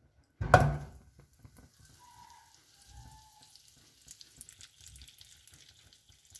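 A block of butter set down in a hot non-stick pan with a sudden thud and hiss about half a second in, then faint sizzling and small crackles as it melts.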